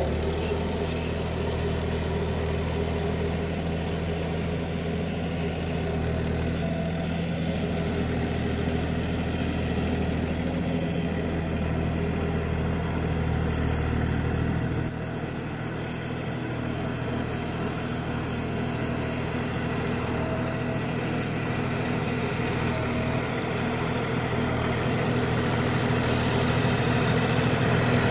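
John Deere 5305 tractor's diesel engine running steadily under load, driving a rotavator through wet paddy mud. The low rumble drops a little about halfway through.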